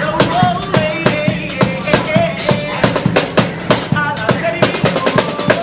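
A small drum kit (snare drum and cymbal) played with sticks in a busy, steady beat, with a man's voice singing a melody over it.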